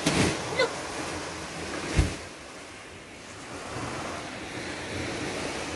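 Small waves washing onto a sandy beach, a steady hiss of surf, with some wind on the microphone. A short knock about two seconds in.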